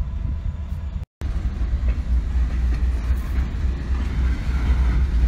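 Train of empty covered hopper cars rolling past close by: a steady low rumble with wheel-on-rail noise that grows louder toward the end. The sound cuts out briefly about a second in.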